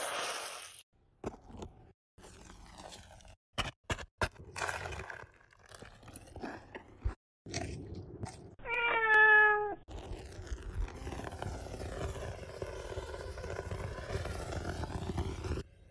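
Short crunches and clicks, then a single cat meow lasting about a second, slightly falling in pitch and the loudest sound here. After it a steady hiss runs until just before the end.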